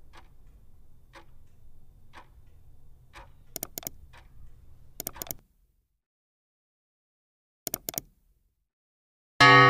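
Mouse-click sound effects from the like and subscribe end-screen animation: sharp clicks in quick threes, about three and a half seconds in, again at five seconds and once more just before eight seconds, over soft ticking about once a second and a low hum in the first half. Near the end a loud music chord strikes and rings on, the loudest sound here.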